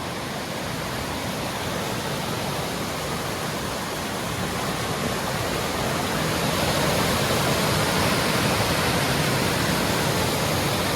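Waterfall on the River Kennal, water rushing steadily, growing louder over the first half as it is approached.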